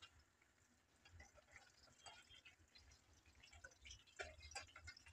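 Faint, scattered crackling and popping of fish pieces shallow-frying in hot oil in a kadhai, the pops coming a little more often near the end.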